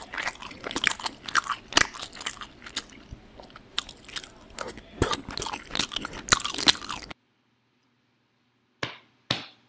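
Mock-ASMR noises made right against a microphone: a dense run of crackling, crunching clicks for about seven seconds that cuts off suddenly, followed by a few separate sharp clicks near the end.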